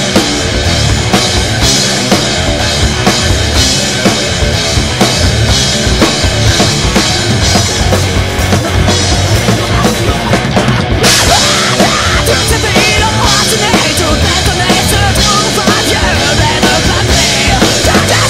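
Rock band playing live: the full band with a prominent drum kit and bass drum, loud and dense. Just before the middle the music thins briefly, and the band comes back in fuller.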